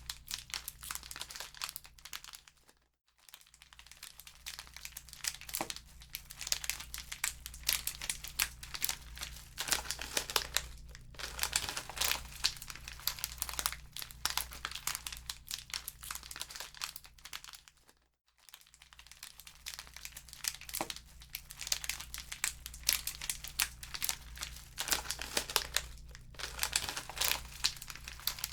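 Wood fire in a fireplace crackling, a dense run of irregular pops and snaps that briefly falls away twice, with a steady low hum beneath.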